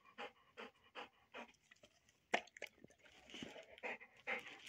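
Large dog panting with its mouth open, quick even breaths about two to three a second, with one sharp click about halfway through.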